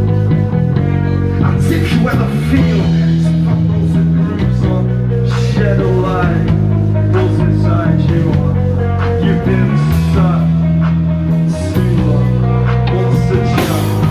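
Rock band playing live: electric guitars and bass holding chords over a drum kit with cymbal hits, and a male singer's voice.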